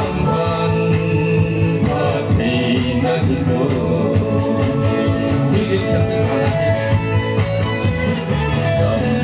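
Singing over backing music: a man and a woman singing into microphones, heard through a sound system.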